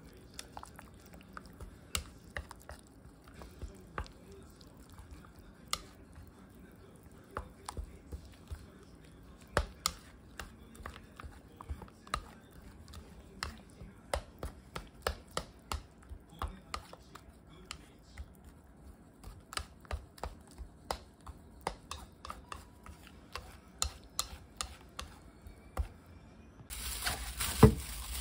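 Kitchen knife cutting on a cutting board: single knocks at an uneven pace, about one or two a second. Near the end a steady rushing noise starts, with one loud knock in it.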